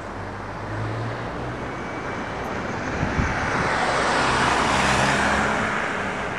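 Pickup truck driving past, its tyre and engine noise swelling to a peak about four to five seconds in, then fading as it moves away.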